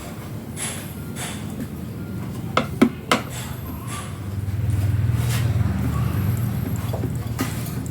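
Light metallic clicks and clinks from tools and parts being handled on a workbench, three sharp ones close together about three seconds in. Under them runs a steady low rumble that swells in the second half.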